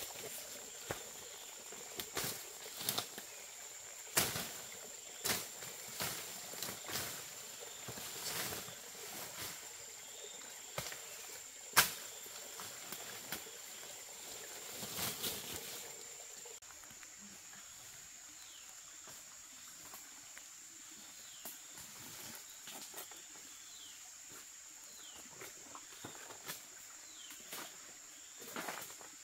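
A steady high-pitched insect drone, with scattered sharp knocks and clicks that come thickly in the first half and thin out later. Faint short bird chirps come in the second half.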